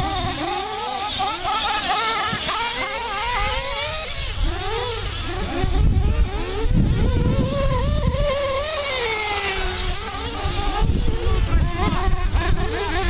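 Several nitro radio-controlled off-road cars racing at once. Their small glow-fuel engines make a high buzz that keeps swooping up and down in pitch as each car revs, brakes and accelerates around the track.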